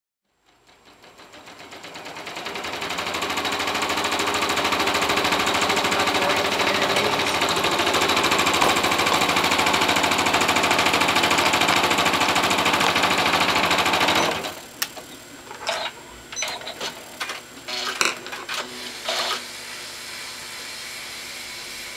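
Janome 12000 sewing machine stitching steadily at speed, stopping abruptly about two-thirds of the way through. After it stops come light scattered clicks and rustling as fabric pieces are handled.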